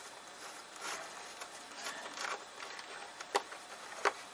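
Light clicks and scrapes of a small screwdriver working screws out of the metal chassis, with two sharper clicks near the end.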